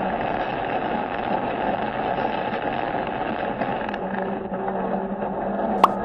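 Steady road and engine noise of a moving vehicle heard from inside the cab, with a faint hum coming in about four seconds in. A single sharp click comes just before the end.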